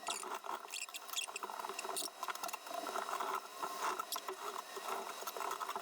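A computer fan being unmounted by hand: a run of small plastic clicks, scrapes and rattles.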